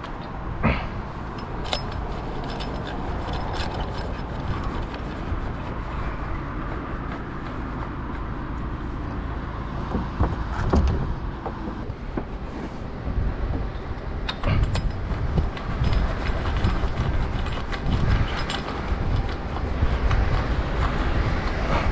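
Elevated work platform truck running with a steady low rumble. Scattered clicks and knocks sound over it, and heavier irregular low thumps come in over the second half.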